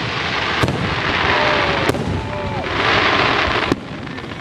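Aerial fireworks bursting: three sharp bangs, the last near the end, over a continuous loud rushing crackle that swells and fades.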